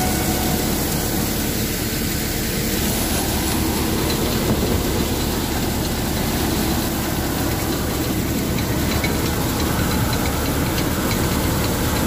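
John Deere 5055E tractor's diesel engine and a paddy thresher machine running together steadily under load, threshing rice.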